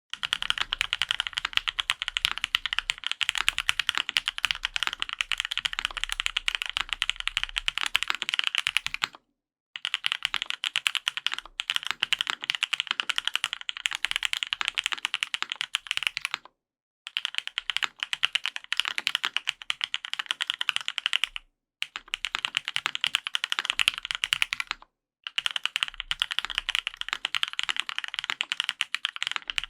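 Fast continuous typing on a gasket-mount custom mechanical keyboard (Matrix 8XV 3.0) with lubed linear Gateron Yellow Pro switches, aluminum plate and GMK keycaps. Dense runs of keystrokes broken by brief pauses about four times.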